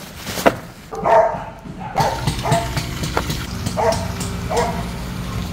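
Small dog barking in short yaps, about five times, over a steady low hum.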